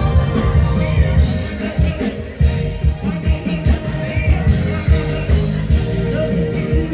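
Music with a heavy bass beat and singing.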